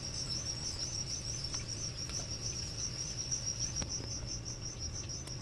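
A cricket chirping steadily, a quick even train of high-pitched chirps, over a low steady hum with a faint tick or two.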